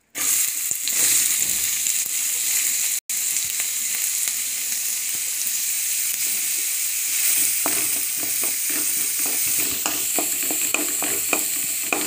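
Chopped onions sizzling in hot oil in an aluminium pot. The sizzle starts as they hit the oil and cuts out for an instant about three seconds in. From about two thirds of the way through, a spatula stirs them, scraping and clicking against the pot.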